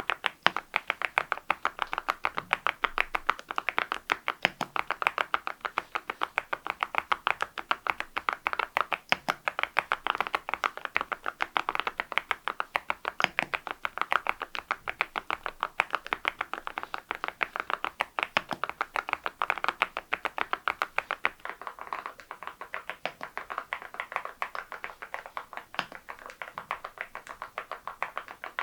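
Continuous fast typing on an Adelie mechanical keyboard fitted with Cerakey ceramic keycaps: a dense run of sharp key clacks, thinning out a little in the last several seconds.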